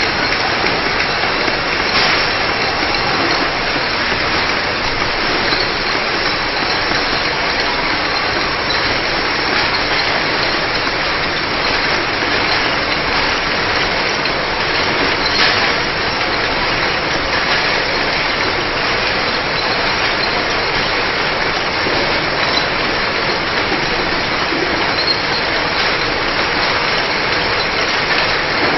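Automatic two-side round-bottle labeling machine running: a steady mechanical noise from the bottle conveyor and labeling heads, with a couple of faint clicks.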